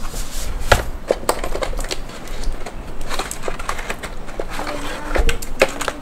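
Tecware Phantom mechanical keyboard being handled: irregular sharp clicks and knocks as it is taken out of its plastic cover and set down, with its keys clicking as they are pressed.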